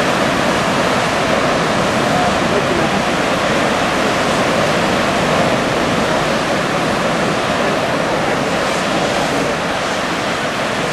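Heavy surf on a very rough sea: a steady rushing noise of waves breaking against a rocky harbour jetty.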